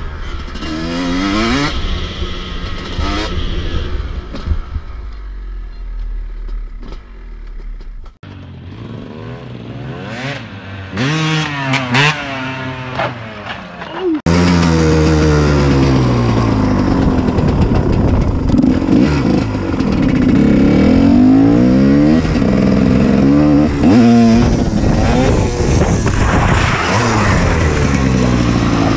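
Dirt bike engines revving, their pitch climbing and dropping again and again. The sound changes abruptly about eight seconds in and again about fourteen seconds in, and is louder after that.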